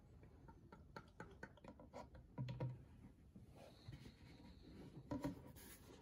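Faint irregular clicks and gurgles as 0W-20 motor oil pours from a plastic jug through a funnel into the engine's oil filler, then a soft thump about two and a half seconds in and plastic handling noise as the jug is lifted away.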